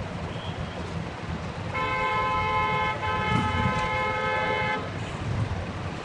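Busy street ambience: a steady low traffic rumble, with a car horn held for about three seconds starting about two seconds in.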